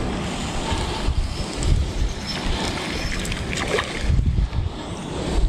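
Wind gusting on the microphone in an uneven low rumble, with a few short clicks a little past the middle as a spinning reel is wound in.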